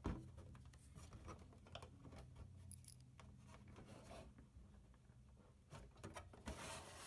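Near silence with faint, scattered clicks and a brief rustle near the end: small plastic toy parts being handled as the elevator tabs of a 1970 Hot Wheels Tune-Up Tower are freed.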